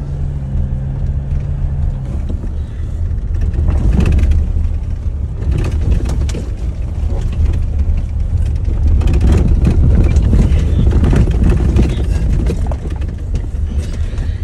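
4WD vehicle driving over a wet, rough dirt track: a heavy low rumble of engine and road noise, with frequent knocks and rattles from the bumps. It gets louder about four seconds in.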